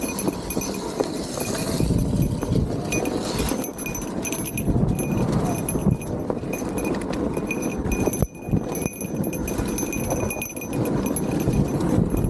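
Small motorcycle engine running unevenly at low revs while riding, mixed with a dense low rumble on the microphone. The sound briefly drops away about eight seconds in.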